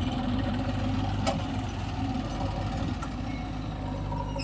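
Diesel engine of heavy machinery running steadily at idle, with one sharp click about a second in.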